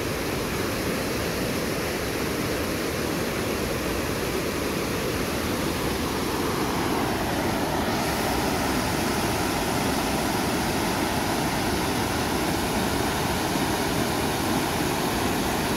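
Muddy floodwater pouring over a concrete dam spillway: a steady rush of white water, getting slightly louder about halfway through.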